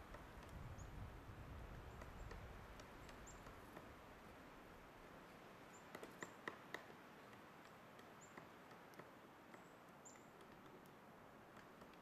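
Pileated woodpecker chiselling into a tree trunk to dig out a cavity: faint, irregular single knocks, with a quick run of four louder blows about six seconds in.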